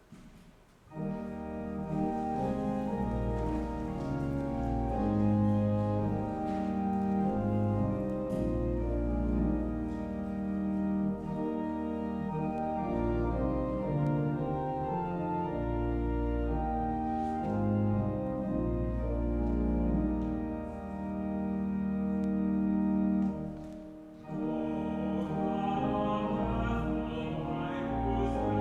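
Church organ playing slow, held chords over a deep pedal bass, starting about a second in. Near the end there is a brief dip, after which the sound comes back fuller and brighter.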